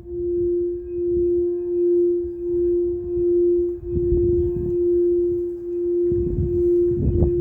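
A singing bowl sounding one steady, held tone that swells and fades in a slow pulse, about every 0.7 seconds. Low rumbling noise comes in briefly near the middle and again near the end.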